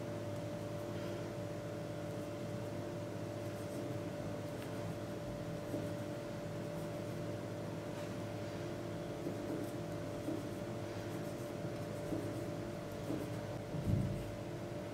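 Knife cutting slits into soft yeast dough on a board: faint scraping and tapping strokes every second or so, over a steady background hum. A low thump near the end.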